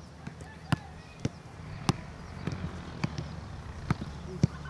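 A football (soccer ball) being struck back and forth in the air between two players, each touch a short, sharp thud, coming irregularly about every half second to a second.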